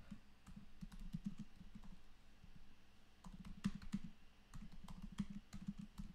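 Typing on a computer keyboard: quick, faint runs of key clicks with short pauses between them.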